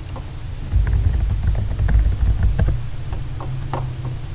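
Computer keyboard typing: a quick, irregular run of key clicks starting about a second in, over a low rumble that swells with the first clicks.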